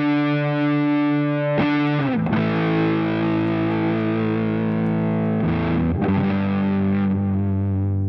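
Electric guitar played through a JOYO Hot Witch Big Muff-style fuzz pedal: thick, distorted chords held with long sustain. A new chord is struck about one and a half seconds in and another a little past halfway.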